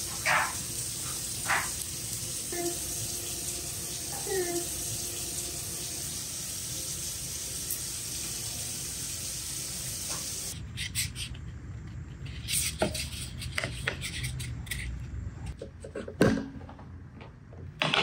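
A steady hiss, then, from about ten seconds in, light clicks and knocks of thin veneer strips being handled and stacked, the loudest knock near the end.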